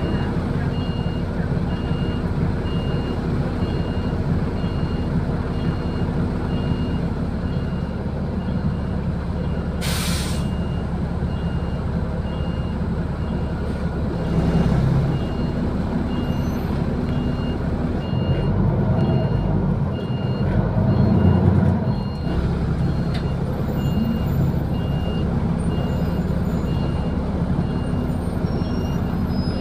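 Inside a city bus: the bus's steady low running hum, with an electronic warning beep repeating about once a second. A short burst of air hiss comes about ten seconds in, and the low rumble swells briefly near the twenty-second mark.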